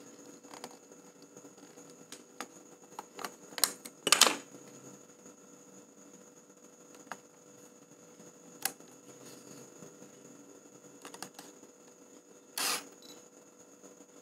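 Canon EOS 650D DSLR being handled and operated: scattered small clicks of its buttons and dial, and two louder short clatters, the loudest about four seconds in and another near the end, fitting the shutter and mirror firing.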